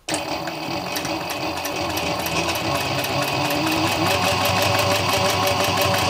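Industrial leather sewing machine running at a steady speed, stitching through two layers of leather with a reverse-twist needle. It starts abruptly and keeps up a fast, even run of needle strokes.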